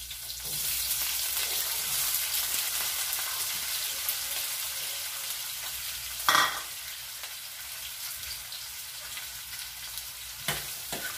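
Chopped onions and green chillies sizzling in hot oil in a stainless steel frying pan, a steady frying hiss. A single sharp knock about six seconds in, and a few short clinks near the end.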